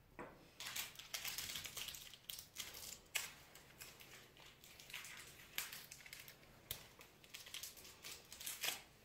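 Packaging being handled: scratchy crinkling and rustling in irregular bursts, with a few sharp clicks in between.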